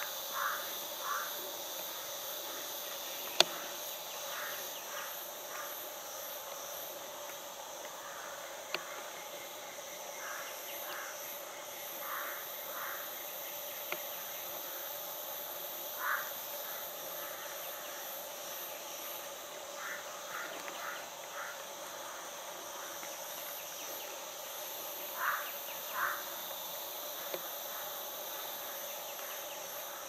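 A steady chorus of forest insects, several unbroken high buzzing layers at once. Short chirps come in groups of two or three every few seconds, and a single sharp click sounds about three and a half seconds in.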